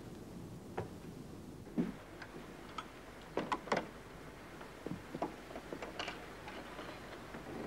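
Scattered light knocks and clicks, irregular and unevenly spaced: footsteps on boards and a wooden shed door being handled.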